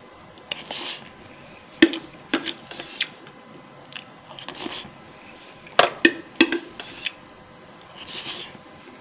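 A person eating instant noodles from a metal pot: short slurps and chewing, with several sharp clicks of the utensil against the pot, a cluster of them about six seconds in.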